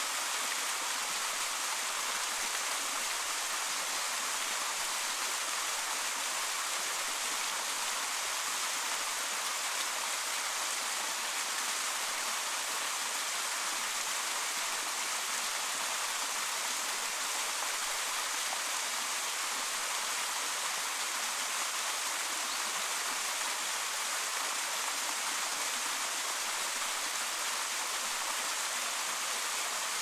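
Valley stream flowing steadily: an even rush of running water that does not change.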